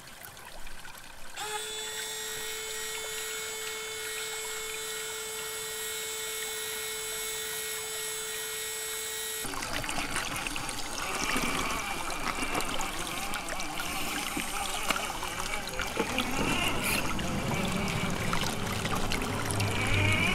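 Shallow creek water trickling while a Traxxas TRX-4 scale RC crawler's electric motor and gears whine as it climbs through the stream. The whine holds steady for several seconds, then turns rougher and changes pitch about halfway through.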